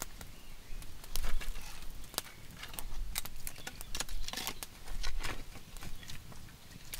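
Sticks of firewood knocking and scraping as they are pushed into a small wood fire, with irregular sharp clicks and crackles.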